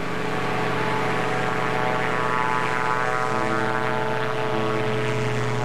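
Powered parachute's engine and caged propeller running with a steady drone. It builds slightly in the first second, then holds at a constant pitch.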